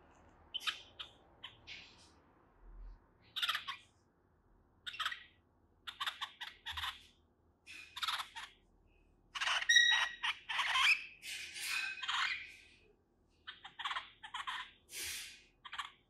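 Cockatiel chick giving a string of short, harsh calls with brief gaps between them, coming thickest around the middle.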